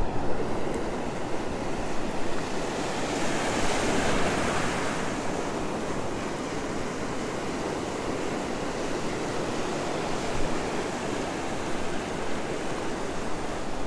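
Ocean surf: breaking waves and foaming wash running in close by, a steady rush that swells louder about three to five seconds in.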